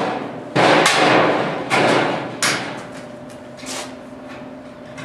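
Hand tin snips cutting through the upright seams of a sheet-metal standing seam roofing panel: three loud metallic cuts in quick succession, each trailing off, then a fainter one near the end.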